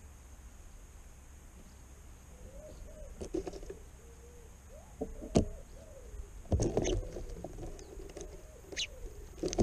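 Eurasian collared dove cooing, a low repeated coo that starts a couple of seconds in. Several sharp knocks come through, and a short high chirp comes near the end.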